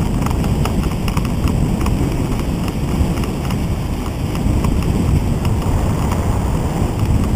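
Wind buffeting the microphone and tyre rumble on a concrete path as an ICE recumbent trike coasts downhill, with light irregular ticking and rattling from the trike.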